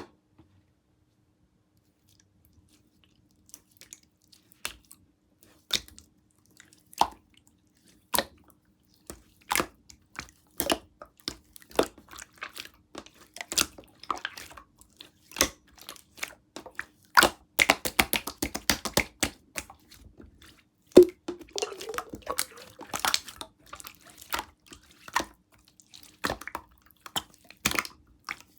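Clear slime being pressed and poked by hand, giving irregular sticky clicks and small air-bubble pops. They are sparse at first and come thick and fast from about a third of the way in, with one brief low squelch past the middle.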